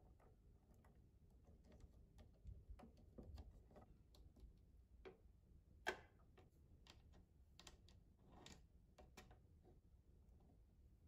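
Faint clicks and taps of plastic parts being handled and fitted together while a toy record-cutter kit is assembled, with one sharper click about six seconds in.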